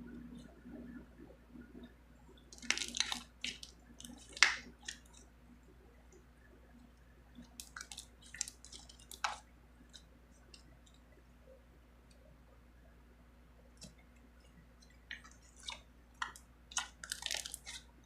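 Slime being squished and worked by hand: short sticky clicks and pops in irregular bunches, with quiet stretches between.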